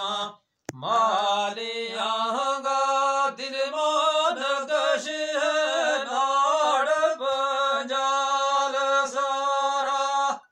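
Unaccompanied male singing in a chanting style, long held notes that waver and bend in pitch. The voice breaks off briefly under a second in, then carries on and stops suddenly at the end.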